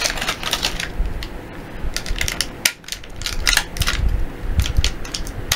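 Clear plastic packaging crinkling and crackling as hands handle and unwrap small plastic toy figures, with irregular clicks and taps throughout.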